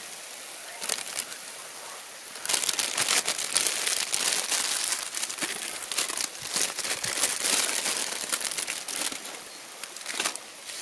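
Plastic salad bag crinkling as a hand rummages in it and pulls out leaves. A steady crackle that grows louder about two and a half seconds in and eases near the end.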